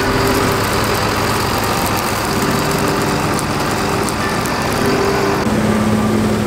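John Deere 8220 tractor's six-cylinder diesel engine running as it pulls a loaded trailer slowly past, mixed with the drone of a combine harvester working alongside. The engine note shifts a little over five seconds in.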